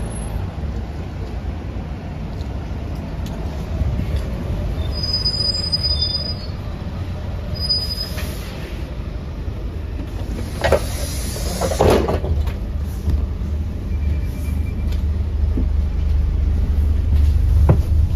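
Volvo B5LH diesel-electric hybrid double-decker bus (Wright Gemini 2) pulling in and standing at the stop with a steady low rumble. A thin high brake squeal comes about five to eight seconds in. A louder rush of sound follows about eleven seconds in as the doors open, then knocks near the end as the passenger steps aboard.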